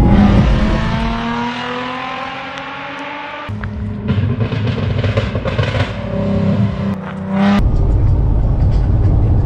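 A car engine accelerating, its pitch rising steadily for about three seconds, followed by a stretch of music with a beat, then steady engine and road noise inside a moving car from about eight seconds in.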